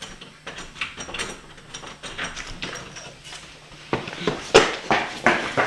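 A dog panting: quick, rhythmic breaths that grow louder about two-thirds of the way in.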